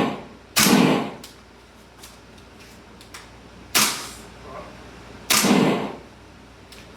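Three gunshots, about three seconds and then a second and a half apart, each followed by a short ringing tail. Faint clicks fall between them.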